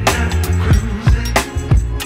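Outro music with a steady drum beat and deep bass.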